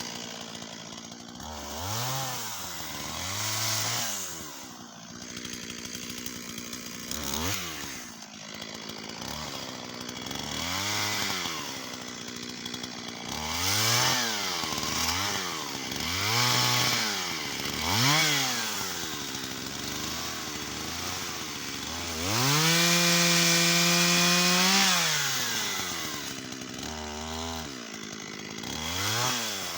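Shindaiwa 488 two-stroke chainsaw cutting wattle. The engine revs up and drops back about a dozen times in short bursts, with one longer stretch held at high revs for about three seconds two-thirds of the way through.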